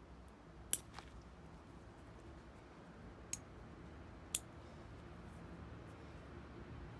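Four sharp clicks of small hard parts knocking together as a small circuit breaker is taken apart by hand, over a low steady hum.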